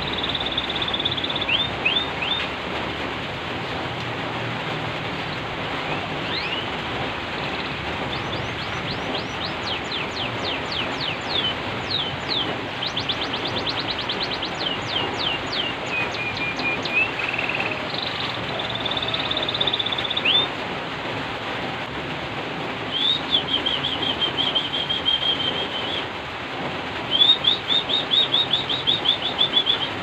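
Domestic canary singing in bursts of trills and fast runs of sweeping notes, over the steady hiss of rain.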